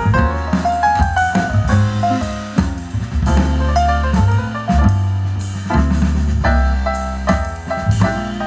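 Instrumental music with drums and a bass line, played loud through a speaker cabinet driven by a PAM8610 class D mini amplifier board as a listening test, heard through the camera's microphone in the room.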